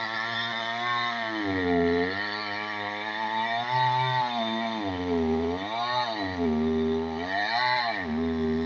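Two-stroke chainsaw cutting into a large tree trunk. Its engine note drops and climbs several times as the chain bogs under load and frees up again.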